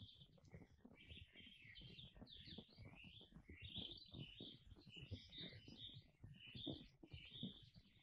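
Faint birdsong: small birds chirping and twittering in a steady run of short, quick notes.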